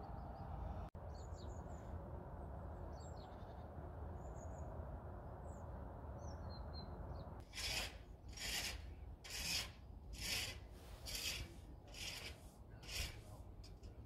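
A few faint bird chirps over a quiet hush, then from about halfway through a run of crunching footsteps in fresh snow, roughly one step a second.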